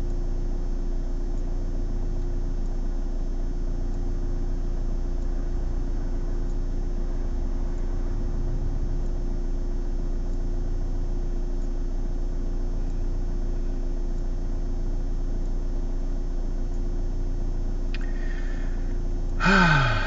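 Steady low hum of a car's engine idling, heard from inside the cabin. Near the end a man makes a short vocal sound that falls in pitch.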